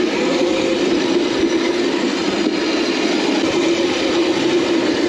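Electric Crazy Cart drift kart with an upgraded 48-volt, 900-watt motor running along a trail: a steady hum over a constant rushing noise.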